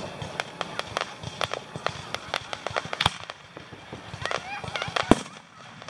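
Fireworks display going off in a rapid, irregular string of crackling pops and reports, with two louder bangs about three and five seconds in.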